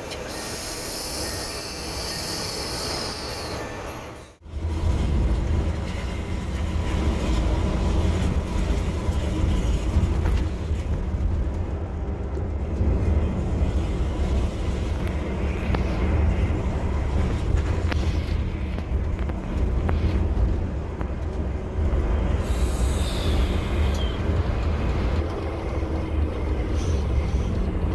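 Coach bus interior noise while driving on the highway: a loud, steady, deep rumble of engine and road. It follows a brief hissier stretch that ends in a cut about four seconds in.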